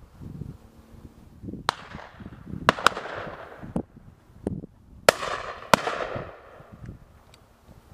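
A run of shotgun shots, about seven in all, from a couple of seconds in to near six seconds. The loudest cracks come in pairs, each pair followed by an echo that fades over about a second. Some of the shots are fainter and further off.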